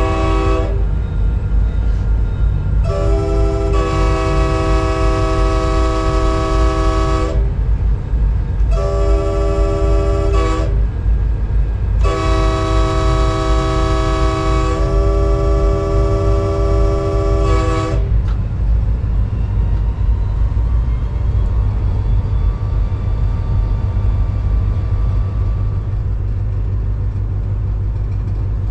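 Multi-chime air horn of an EMD SD40-3 diesel locomotive, heard from inside the cab. A blast ends just after the start, then come a long blast, a short one and another long one, the pattern sounded for a grade crossing. Under it runs the steady low running of the locomotive's 16-cylinder EMD 645 diesel, which with the rail noise is all that remains after the last blast ends about eighteen seconds in.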